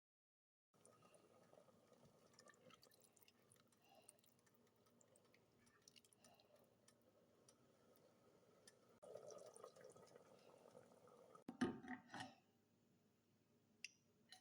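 Faint liquid sounds, like light bubbling and dripping from food cooking in a pan, with a short clatter of sharp clinks about eleven and a half seconds in.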